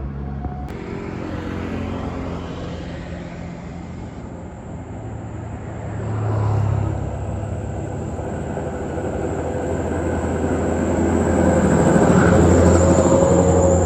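Road traffic, with the diesel engine of a large bus rumbling as it approaches, growing louder and passing close near the end.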